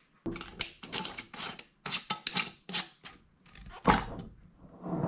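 Metal screw bands and lids being handled on glass canning jars: a quick run of small clicks and clinks, then a louder knock a little before the end.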